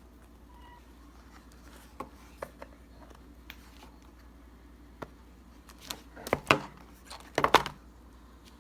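Scattered light clicks and knocks, with two short bursts of clattering about six and a half and seven and a half seconds in.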